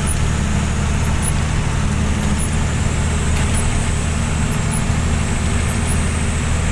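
Truck engine running steadily under way, heard from inside the cab as a low even hum, with tyre and rain noise on a wet road.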